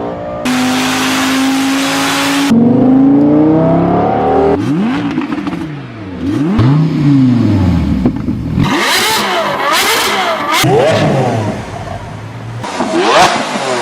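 Car engines revving in a string of short edited clips: one holds a steady note, then others rise and fall in pitch with repeated throttle blips, each clip cutting off suddenly into the next.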